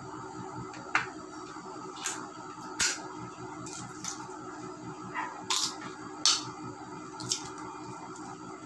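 Perfume bottle's spray pump spritzing several times, each spritz a short hiss.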